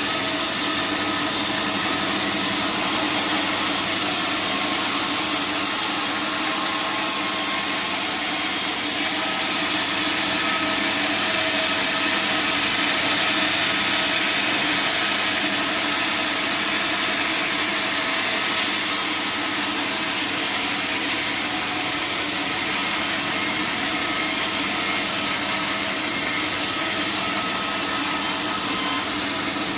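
Sawmill blade cutting through teak wood: a steady, continuous sawing noise over the even hum of the saw's machinery.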